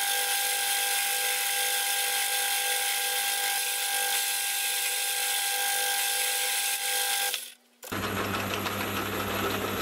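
Boring bar cutting a step inside the bore of a steel hammer head spinning in a Hafco AL250G metal lathe: a steady cutting noise with a thin steady whine. It stops abruptly about seven and a half seconds in, followed by the lathe running with a low hum.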